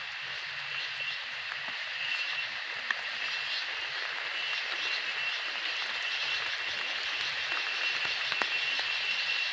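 Steady rush of river water, an even hiss with a thin, steady high whine running through it.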